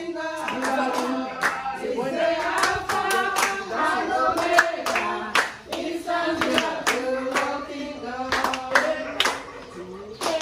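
A group of women singing a gospel praise chorus together, clapping their hands in a steady rhythm.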